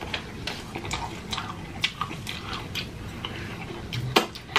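Close-miked chewing of greasy fried chicken: wet, irregular smacking and clicking mouth sounds, with a louder smack just after four seconds in.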